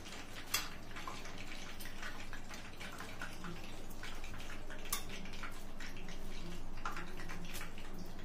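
Chicken strips sizzling in hot frying oil, a steady hiss, with a few sharp clicks of metal tongs, the loudest about half a second in and again about five seconds in.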